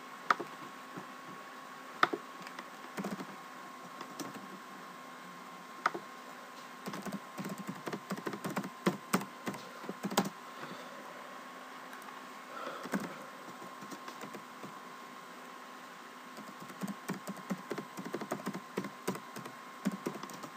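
Computer keyboard being typed on, in two quick runs of keystrokes about seven seconds and seventeen seconds in, with scattered single clicks between, over a faint steady hum.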